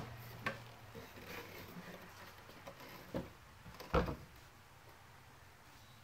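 Handling noise: a few soft knocks and light rubbing, the loudest a single thump about four seconds in.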